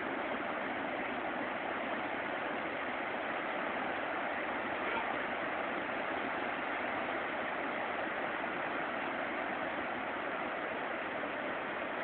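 River waterfall rushing: a steady, even noise of falling water with no breaks or changes in level.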